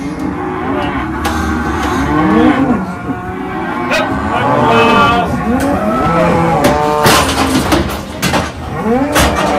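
Cattle mooing and bellowing in many overlapping calls, with a few sharp metallic clanks from the steel cattle crush and yard rails.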